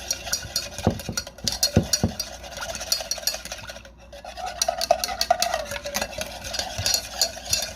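A wire whisk beating powdered pectin and water in a saucepan: quick, rapid clicking of the wires against the pan, with a few dull knocks early and a short break about four seconds in.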